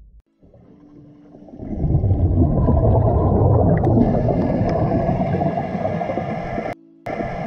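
Scuba diver's exhaled bubbles gurgling and rushing, heard underwater. It starts faint, swells about two seconds in and stays loud and steady, with a brief drop-out near the end.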